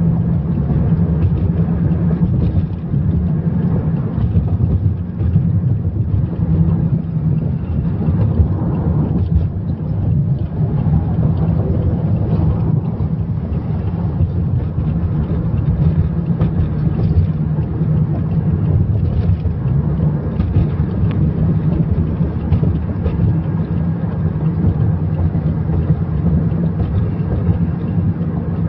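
Steady low rumble of a moving car heard from inside the cabin: engine and tyre road noise at highway speed.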